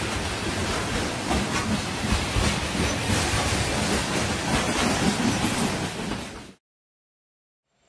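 Freight train cars rolling past: the steady rumble and rattle of steel wheels on rail with repeated clicking. The sound cuts off about six and a half seconds in.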